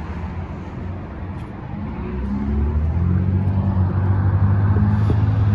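A motor vehicle's engine rumbling close by, growing louder about two and a half seconds in and staying loud.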